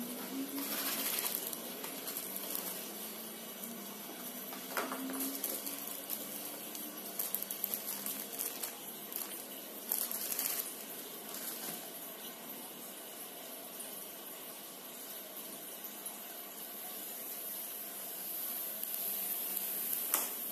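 Packaging being handled: a plastic bag crinkling and cardboard rustling in short bursts over a steady hiss.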